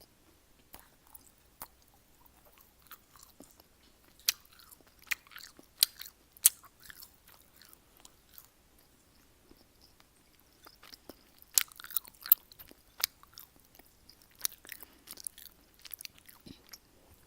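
Close-up mouth sounds of someone chewing food: wet clicks and smacks. They come in irregular clusters, with the loudest a few seconds in and again in the second half.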